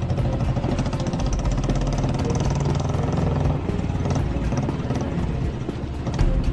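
Royal Enfield single-cylinder motorcycle engine running steadily as the bike rides along.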